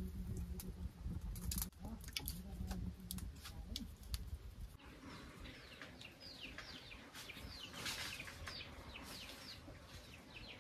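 Birds chirping: a run of quick, high, falling chirps in the second half, with scattered faint clicks before it.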